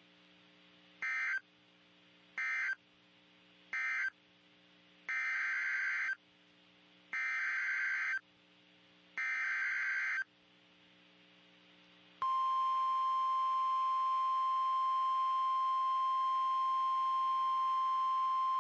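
NOAA Weather Radio EAS/SAME data bursts: three short end-of-message bursts, then three longer header bursts announcing the next warning, each a harsh digital squeal. About 12 seconds in the steady 1050 Hz weather radio warning alarm tone starts and holds.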